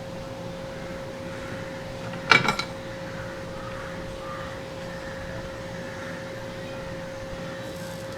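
Steady background hum with a thin constant tone, broken just over two seconds in by a quick rattle of a few sharp clicks, like a small tool being handled on the bench.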